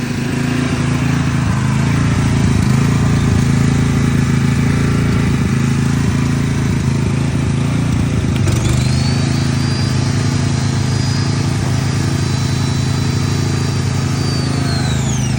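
Portable gasoline generator running steadily under load. About halfway through, the Ryobi 1600 psi electric pressure washer's motor and pump switch on with a click, holding a high whine that falls in pitch and stops near the end as the motor shuts off.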